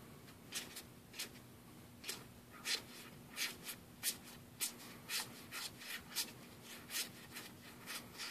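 Trading cards being slid one at a time off a fanned stack from one hand to the other, a short, soft card-on-card slide about twice a second.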